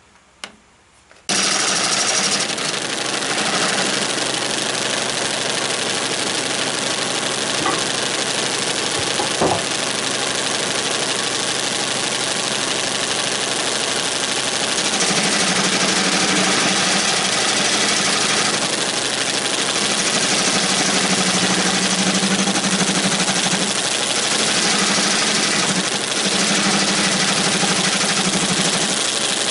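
A workshop machine switches on suddenly about a second in and runs steadily with a loud rushing hiss over a low hum. From about halfway, a deeper drone comes and goes several times.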